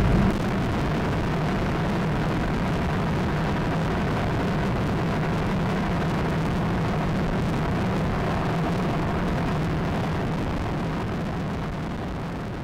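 Inshore lifeboat's outboard engines running at speed, mixed with a steady rush of wind and spray on the boat-mounted microphone. The sound fades out near the end.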